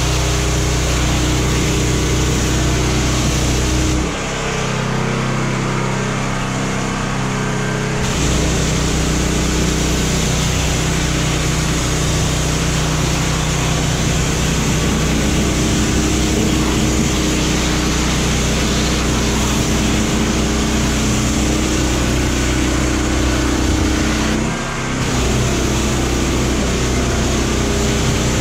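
Pressure washer running, its motor humming steadily under the hiss of the high-pressure jet striking the truck's metal fuel tank and steps. A few seconds in, the spray stops for about four seconds and the machine's note changes, and it breaks off again briefly near the end.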